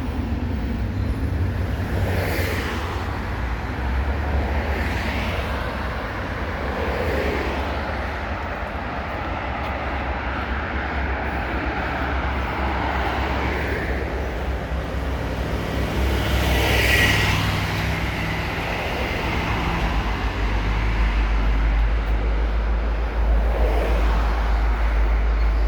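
Low, steady rumble of a diesel commuter train moving slowly across a bridge, growing heavier about twenty seconds in. Road traffic swishes past now and then.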